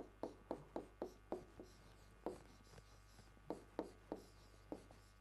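A pen writing Japanese characters on a board: a quiet run of about fifteen short scratchy strokes and taps, coming in quick clusters with brief pauses between them.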